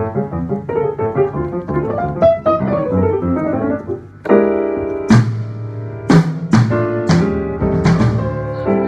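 Piano played at a sound check: a flowing run of notes falling in pitch, then, from about four seconds in, full held chords with several sharp hits over them.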